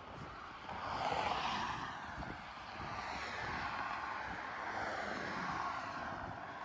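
Road traffic: cars passing close by on the road, a steady rush of tyres and engines that swells about a second in and then holds.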